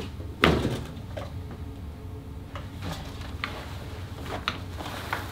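A cardboard box set down on a wooden desk and handled: one solid thump about half a second in, then scattered light knocks and clicks, over a steady low hum.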